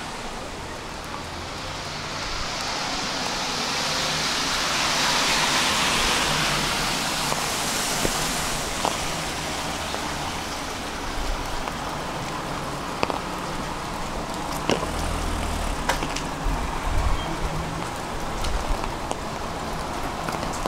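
A car passing on the wet street, the hiss of its tyres on the rain-soaked road swelling and fading a few seconds in, over steady rain. Later, scattered sharp ticks of drops sound over the rain hiss.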